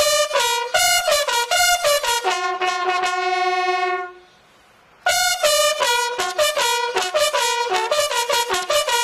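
A solo brass instrument, trumpet-like, playing a melody of quick short notes. It holds one long note, breaks off for about a second partway through, then goes on with quick notes again.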